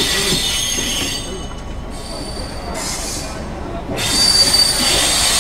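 Passenger train squealing, steel on steel, as it slows into a station. The high-pitched squeal is strong at first, fades for a couple of seconds, and comes back strongly about four seconds in.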